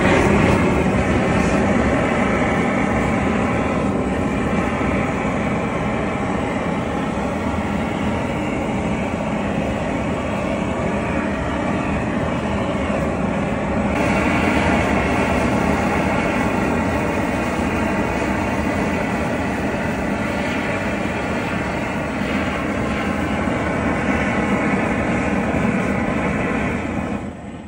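Hand-held gas torch burning with a steady roar as its flame is played over a blown-glass sculpture to reheat it. The roar starts at once and cuts off just before the end.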